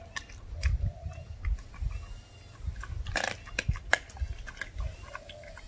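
German shepherd puppy chewing and crunching raw chicken bone: a run of short sharp cracks, the loudest cluster a little past the middle.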